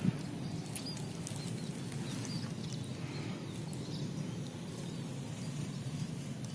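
Steady low outdoor rumble with a couple of sharp clicks near the start and faint high bird chirps.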